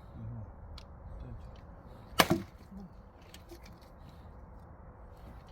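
A single sharp axe blow striking a firewood log about two seconds in.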